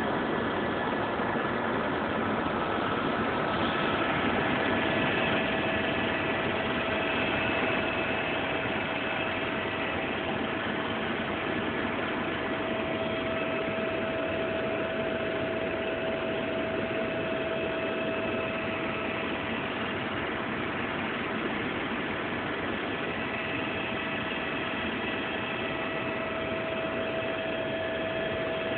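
Helicopter engine and rotor noise heard from inside the cabin in flight: a steady drone with a few steady whining tones over it.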